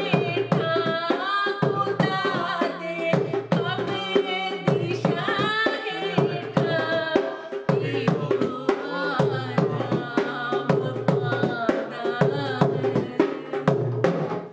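Punjabi worship song: a voice singing over a regular drum beat with a held instrumental note underneath.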